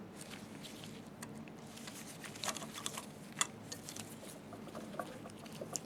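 Scattered small clicks and taps of a screwdriver and metal parts being handled while a slit lamp is put back together, with a few sharper clicks around the middle, over a faint steady hum.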